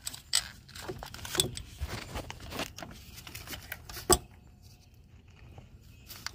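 Clicks and rustling of hands working the transmission dual linear solenoid valve up off its tube, with one sharp click about four seconds in, then quieter.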